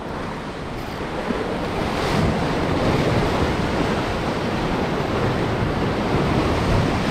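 Sea surf breaking and washing over jetty boulders, with wind buffeting the microphone. The wash swells louder about two seconds in, then goes on steadily.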